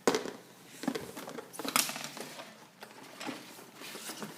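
Plastic and cardboard toy packaging being handled and pulled open: a few sharp crackles and clicks with rustling between them.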